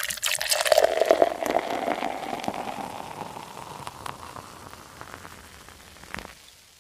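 Fizzing of a carbonated drink: a dense crackle of bursting bubbles, loudest at first and fading away over several seconds, with one sharp click near the end.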